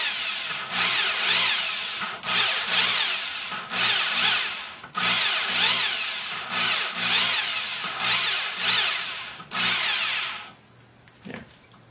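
A cordless drill spins a valve against its seat in a Porsche 944 cylinder head with lapping (valve grinding) compound, running in reverse: the motor whines over a gritty grinding. It runs in spurts with a short break about every second, its pitch rising and falling, and stops near the end.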